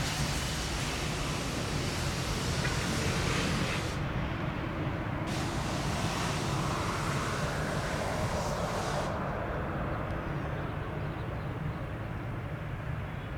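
Airbus A319 jet airliner's engines running, a steady rumbling noise mixed with wind noise on the microphone.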